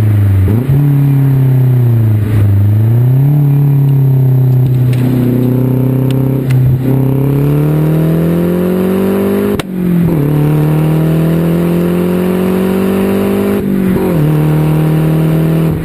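Exhaust note of a 2010 Mazdaspeed3's turbocharged 2.3-litre four-cylinder through a 3-inch turbo-back aftermarket exhaust, pulling hard with rising pitch. It upshifts about ten seconds in and again near the end, each shift a sudden drop in pitch before it climbs again.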